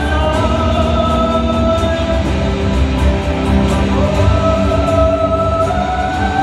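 Live rock band playing through a hall sound system: guitars over a heavy low end, with long held melody notes that slide between pitches.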